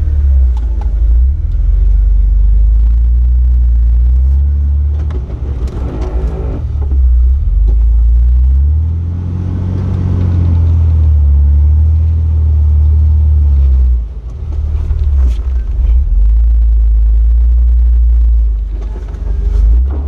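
Off-road vehicle engine running at low revs, its revs rising and falling a couple of times, most strongly about ten seconds in.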